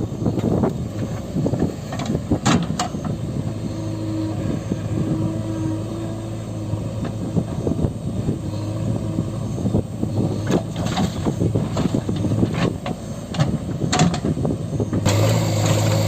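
Heavy diesel machinery running steadily, with a low engine note and a few sharp clanks and knocks scattered through. About fifteen seconds in the sound changes abruptly to a louder, steadier engine note.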